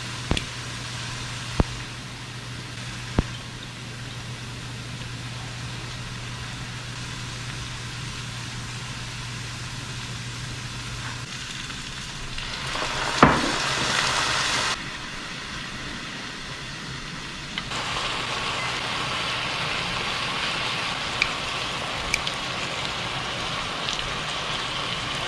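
Food sizzling in a frying pan, with a few light utensil clicks against the pan and a brief louder clatter about halfway through.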